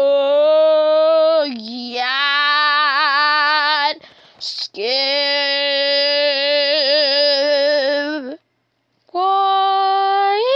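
A voice singing long held notes with a wavering pitch, each lasting a couple of seconds or more, with short breaks between them; the last note jumps up in pitch near the end.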